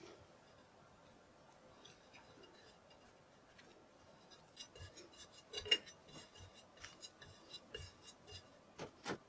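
Metal offset spatula scraping and tapping as it smooths chocolate buttercream around a cake on a turntable. Faint at first, then from about four and a half seconds in, a run of light clicks and scrapes, the loudest near the middle.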